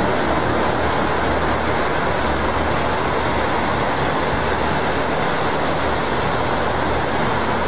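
A loud, steady rushing noise with a low hum underneath.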